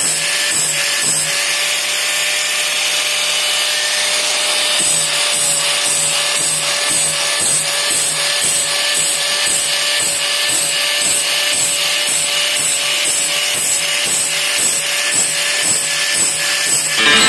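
Angle grinder running steadily with a constant whine, its abrasive disc grinding the steel teeth of a band saw blade to sharpen them. A regular pulse comes about two to three times a second.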